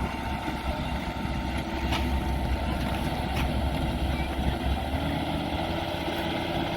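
Engine of a rice harvesting machine running steadily with a low rumble. About five seconds in, a pitched whine comes in, rising slightly and then holding. Two short sharp clicks fall in the middle.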